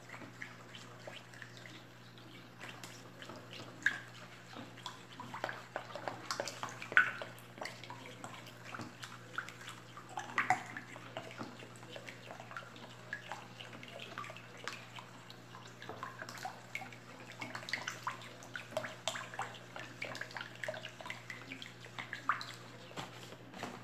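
Liquid soap batter of oil and caustic soda being stirred briskly with a plastic spoon in a plastic bowl: continuous sloshing and swishing with irregular sharp clicks of the spoon against the bowl. The stirring is working in baking soda that has gone lumpy.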